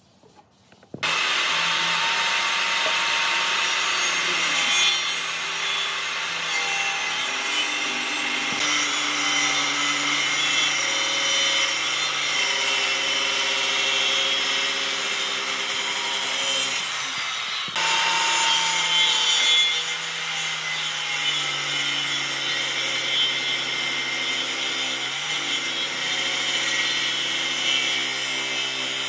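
Electric power tool working wood, starting abruptly about a second in. It runs steadily with a motor hum that shifts in pitch as the load changes, and breaks off for a moment about two-thirds of the way through before going on.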